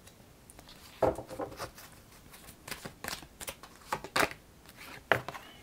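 Oracle cards being handled: an irregular string of short slaps and rustles as cards are shuffled and slid across the cloth, starting about a second in.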